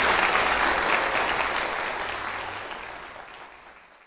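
Audience applauding, fading out steadily to silence near the end.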